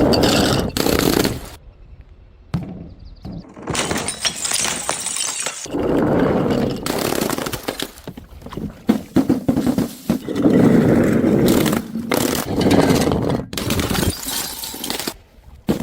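Glass bottles and jars being smashed and crushed: a run of sharp crashes, each followed by crunching and scraping of broken glass, with brief pauses between.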